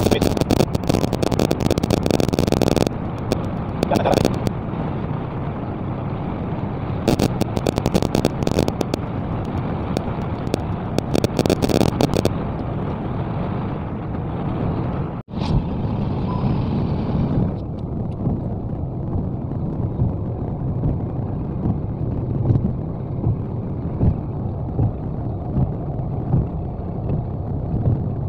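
Car driving at road speed, heard from inside the cabin: steady tyre, engine and wind noise. Bursts of hissy crackle come over it in the first twelve seconds, and the sound drops out for an instant about fifteen seconds in.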